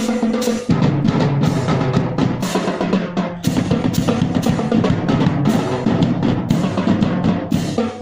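A band playing: a steady drum beat of about two strokes a second, with drum rolls, over held instrument notes that change pitch a few times.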